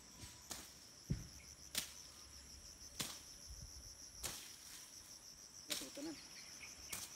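Insects chirring in a steady high trill, with sharp clicks or knocks at uneven spacing, roughly every second or so.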